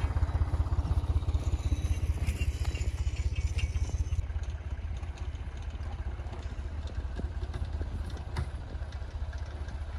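Tractor engine idling steadily, a low even running sound, while it stands ready to pull out a stuck vehicle.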